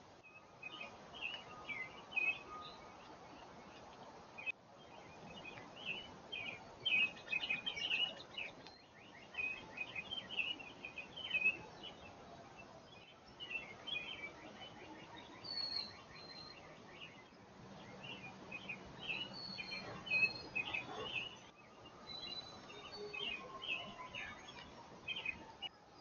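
Backyard songbirds chirping and calling, many short chirps with a quick trill about seven seconds in; the sound drops out briefly a few times.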